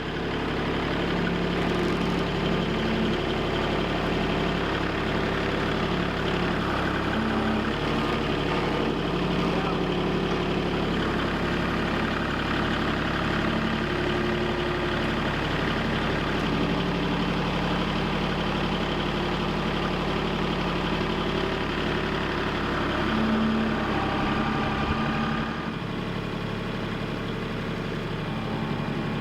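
Tractor engine running steadily, its pitch shifting briefly near the end before it settles lower and a little quieter.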